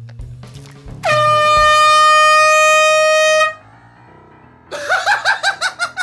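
An air horn blasts one long, steady, piercing note for about two and a half seconds, cutting off abruptly. About a second later comes a run of quick rhythmic laughter.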